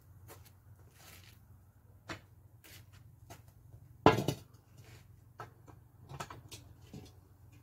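Scattered metal knocks and clanks as a cast-iron camp oven is handled at the campfire, with one loud clang about four seconds in.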